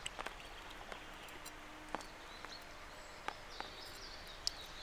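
Quiet outdoor ambience with a handful of faint, scattered clicks and light taps, like things being handled while preparing to clean fish, plus a few faint bird chirps after the middle.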